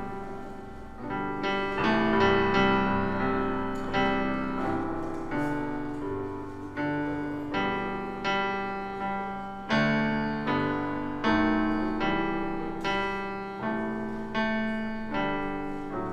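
Solo piano playing a slow, chordal postlude, with chords struck about once a second and left to ring out and fade.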